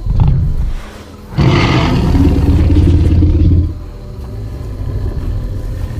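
Sound-designed Tyrannosaurus rex vocalisation: a short deep rumble at the start, then after a brief gap a louder, rasping low growl of about two seconds that fades away.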